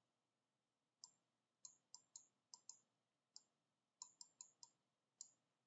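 Faint, irregular light clicks of a stylus tip tapping a tablet screen during handwriting, about a dozen of them, some in quick little runs.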